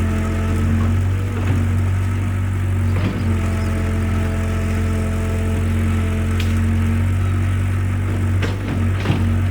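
Excavator diesel engine running steadily with a low drone, with a few sharp knocks about a second and a half in, at three seconds and near the end.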